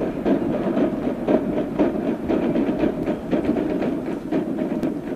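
A corps of military cadet snare drummers beating a march rhythm: a continuous run of drum strokes.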